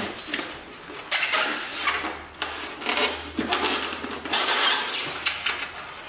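Polystyrene foam packing squeaking and scraping against the coffee grinder's body as the machine is worked out of its foam insert, in several irregular bursts with short pauses.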